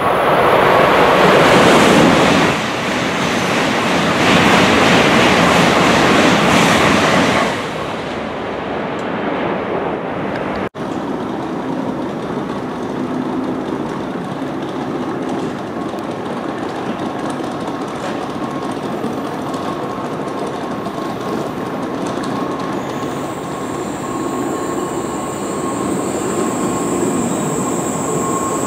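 Tokaido Shinkansen N700-series train pulling slowly into the platform. A loud rushing noise fills the first seven seconds or so, then the train's running noise settles and stays steady. A thin high whine joins near the end as it slows.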